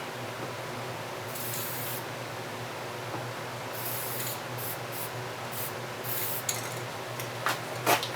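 Aerosol spray paint can spraying in a series of short hisses, the longest starting about a second in and several briefer ones through the middle, over the steady low hum of window ventilation fans.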